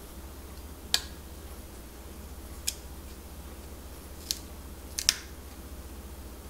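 Chef's knife blade striking an avocado pit with a sharp click about a second in, then a few smaller clicks as the blade lodged in the pit is twisted to work the pit free, ending in a quick double click.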